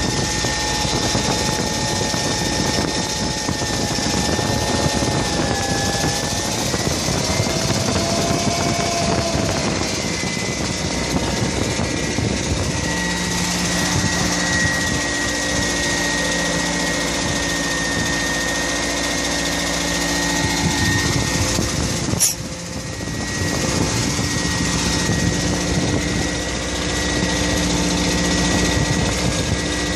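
An engine running steadily, with a hum that comes and goes in the second half and one sharp click about two-thirds of the way through.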